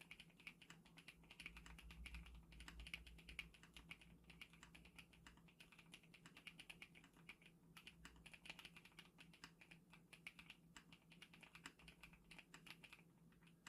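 Steady, fast typing on a Monsgeek 75% full-aluminium mechanical keyboard with hand-lubed switches and 3 mm Poron foam dampening the inside of the case: a dense, irregular stream of keystroke clicks, several a second.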